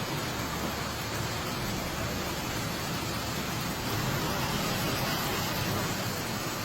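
Heavy storm rain pouring down, a steady dense hiss with no separate impacts, a little louder from about four seconds in.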